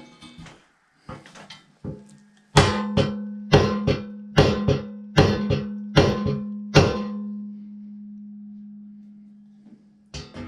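Series of about eight evenly spaced hammer blows on the mini bike's steel frame, each leaving a metallic ring over a steady low hum that fades out a few seconds after the last blow, as a greased bolt is driven home.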